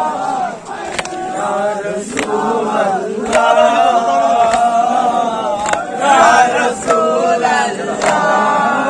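A crowd of men chanting a nauha mourning chant together, with sharp slaps of hands striking chests (matam) about once every second and a bit, keeping the beat.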